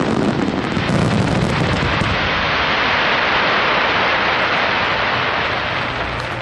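Aerial firework shells bursting in a fast, dense volley with low booms, then a steady crackling hiss as glittering stars burn out, easing off slightly near the end.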